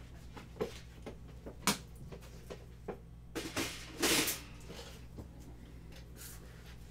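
Handling noises: a few light knocks and clicks, then a brief louder scuffing about four seconds in, over a steady low electrical hum.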